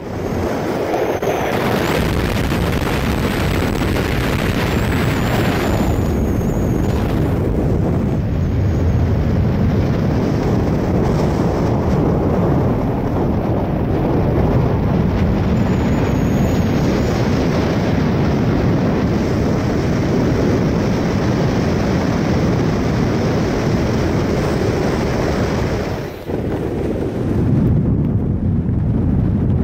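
Wind buffeting the microphone of a camera in a moving car, a loud steady rumble with road noise under it. It drops briefly near the end.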